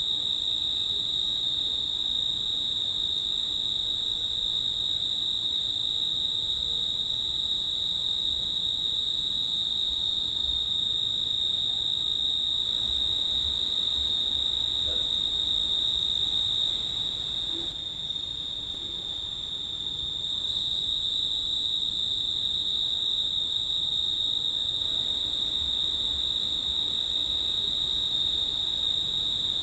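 Crickets trilling in one steady, unbroken high-pitched chorus, briefly a little softer about two-thirds of the way through.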